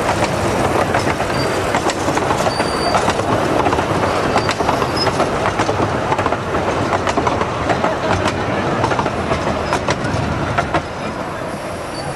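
Miniature 15-inch gauge train carriages rolling along, with steady rattling, many sharp clicks from the wheels over the rail joints and brief high flange squeals. The sound drops a little near the end.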